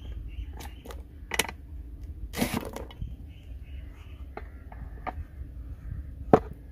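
Hand-operated press-type French fry cutter: a peeled raw potato forced through its steel blade grid, with scattered clicks from the press, a short crunching slice about two and a half seconds in, and a sharp knock near the end.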